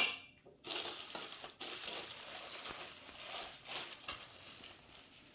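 A sharp knock, then about four seconds of crinkling and rustling packaging as the meat grinder's parts are handled.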